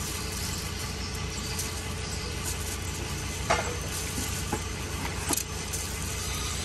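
Steady low motor hum like an idling engine, with a few sharp light clicks and taps from the skewering and handling of food, the loudest about three and a half seconds in and another about five seconds in.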